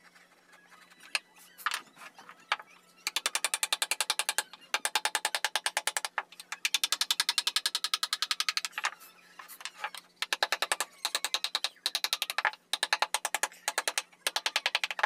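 Small hammer tapping rapidly on a wood-carving chisel, driving it into the wood. A few single knocks come first, then runs of about eight quick taps a second, each run lasting a second or two, with short pauses between.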